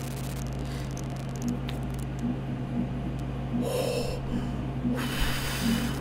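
Fake fart noises from a prank: a short one about four seconds in, then a longer, noisier wet fart about a second later, over a steady low hum.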